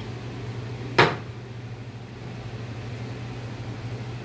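One sharp clack about a second in as a hard object, such as a bait mold, is set down on the work counter, over a steady low hum.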